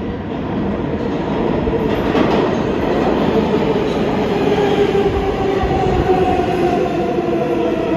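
New York City subway train running through the station over rail noise, growing louder about a second in. Its motors give a whine that slowly falls in pitch, as a train does while slowing.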